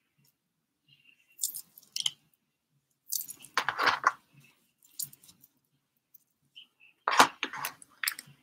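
Metal bracelets and bangles jangling and clinking in short bursts as the arms move, mixed with some handling rustle. The loudest bursts come about four seconds in and again about seven seconds in.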